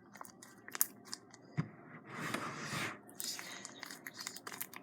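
Sticky slime being kneaded and squeezed by hand, a run of small wet clicks and pops, with a longer, louder squelching rush about two seconds in.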